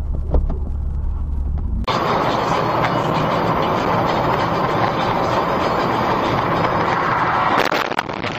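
Car driving, heard from inside the cabin through a dash camera: a low steady engine hum, then about two seconds in an abrupt switch to loud, steady road and wind noise.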